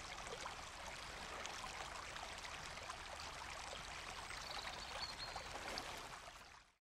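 Shallow river rushing over rocks, a steady faint water noise that fades out and stops near the end.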